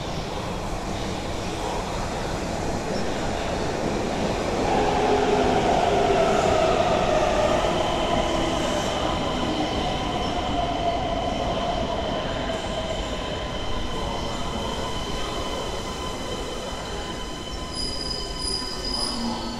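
Electric train running at the platform, with a whine that slowly falls in pitch and a high steady squeal over the rumble of the wheels. It is loudest about five seconds in.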